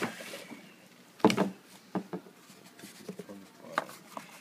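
Scattered knocks and clatter of a glue container being handled on a wooden table, with a brief rustle at the start. The loudest, sharpest knock comes a little over a second in.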